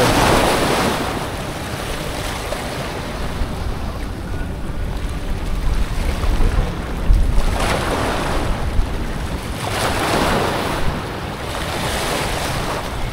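Small waves breaking and washing over shoreline rocks, surging several times, with wind rumbling on the microphone.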